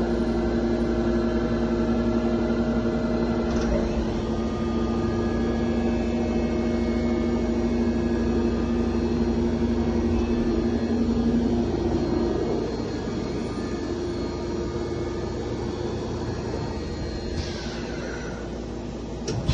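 Hwacheon Sirius 550 vertical machining center running: a steady mechanical hum with a couple of steady tones. Some of the higher tones stop about four seconds in, and around twelve seconds in the main tones drop away and the hum gets somewhat quieter.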